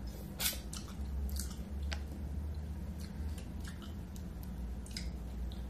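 Close-up wet chewing of a mussel, with smacking mouth sounds and a few short, sharp clicks as the shells are handled, over a low steady hum.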